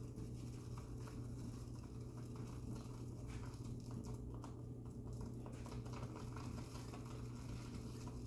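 Omega shaving brush whisking shaving soap into a lather in a ceramic palm bowl: a steady run of soft, fast, wet strokes.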